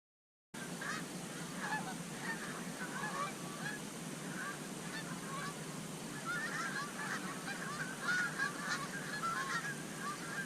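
A flock of Canada geese honking, many calls overlapping continuously, starting about half a second in.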